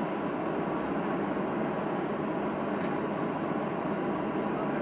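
Steady cabin noise of a Boeing 737 taxiing with its engines at idle, heard inside the cabin at a window seat over the wing: an even rumble and hiss without change.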